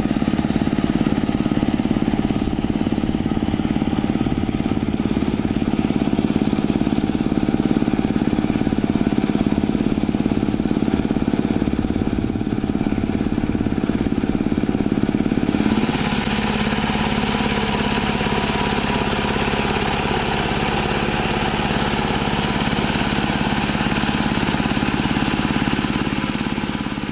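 Single-cylinder diesel engine of a two-wheel hand tractor running steadily under load in wet paddy mud. About sixteen seconds in, its tone changes and more hiss comes in.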